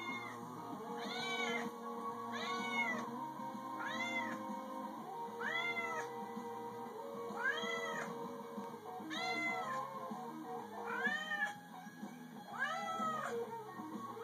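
Tabby-and-white domestic cat meowing over and over, one rising-and-falling meow about every second and a half, calling for attention.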